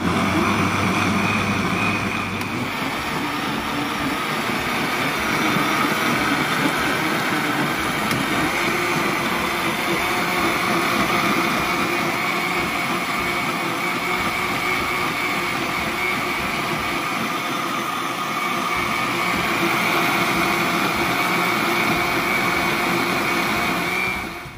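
Electric countertop blender running steadily, its motor whining as it churns a thick fruit smoothie of mango, chia seeds, apple juice and water. It starts suddenly and cuts off near the end.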